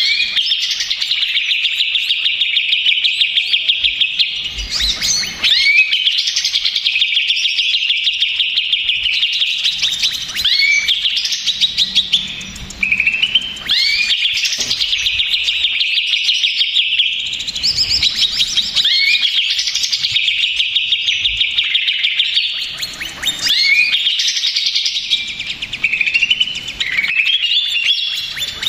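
Cucak ijo leafbird singing loudly and almost without stop, a rowdy, agitated song of rapid chattering trills and whistles in long phrases with a few brief pauses.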